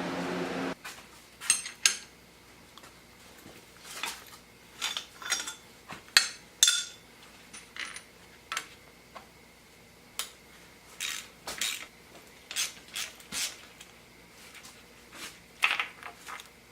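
Irregular light metallic clinks and clanks of hand tools against engine parts during a teardown, some with a brief ring.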